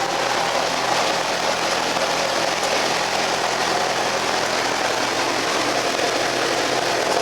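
Millington Diamond 2.5-litre naturally aspirated four-cylinder race engine in a Mk2 Ford Escort rally car, running steadily at idle on its first start-up.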